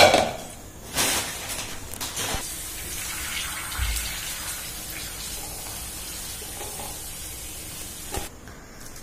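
Pani puri shells frying in hot oil in a steel pan: a steady sizzling hiss with a few short knocks, cutting off sharply near the end.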